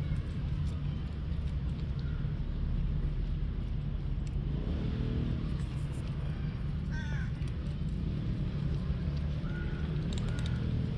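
Steady low rumble of road traffic, with crows cawing now and then over it and a run of short repeated caws near the end.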